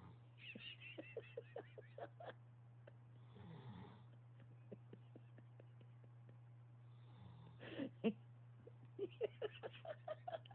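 A man snoring in his sleep: slow, breathy snores a few seconds apart. Twice they are broken by a string of short mumbled sounds, which are sleep-talk. A steady low hum runs underneath.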